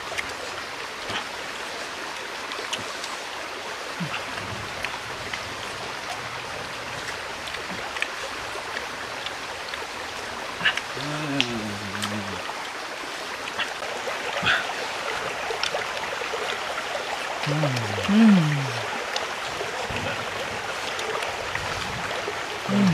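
Shallow stream running steadily over rocks. Twice a man's voice makes a short sound that falls in pitch, and there are a few faint clicks as santol fruit is peeled.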